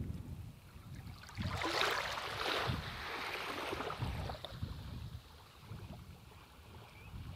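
Shallow sea water washing over sand at the water's edge. A small wave rushes in with a hiss about a second and a half in and fades over the next couple of seconds, while wind buffets the microphone in low rumbles.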